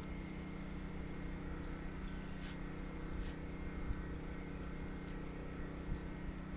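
Steady low engine hum that does not change, with a couple of faint clicks about two and a half and three seconds in.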